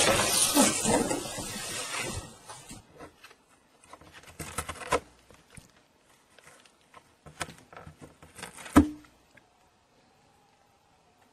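Cardboard box being bitten and torn at by a cat: loud rustling and scraping of cardboard in the first two seconds, then scattered bursts of short crackles, with a sharp snap about nine seconds in.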